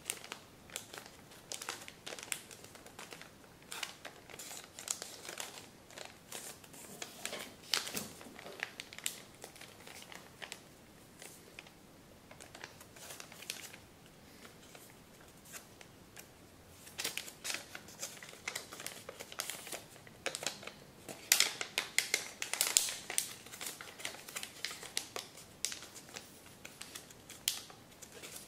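A 35 cm sheet of kami origami paper rustling and crinkling as hands fold and crease it, in quick irregular crackles. It goes quieter for a while around the middle and is busiest and loudest in the last third.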